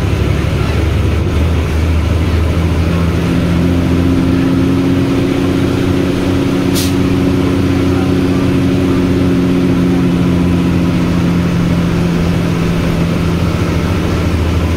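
A vehicle engine running steadily with a low, even hum, and a short hiss about seven seconds in.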